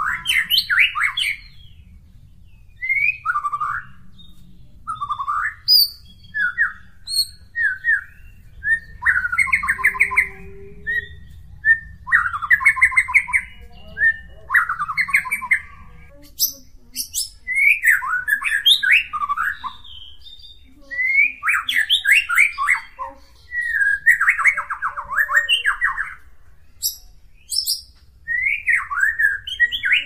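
White-rumped shama (murai batu) singing: a string of short, varied trilled phrases, one after another with brief pauses, over a low steady rumble.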